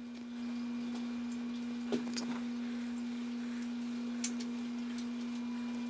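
A steady low pure tone, like an electrical hum, holding one pitch throughout, with a few faint clicks about two seconds in and again near four seconds in.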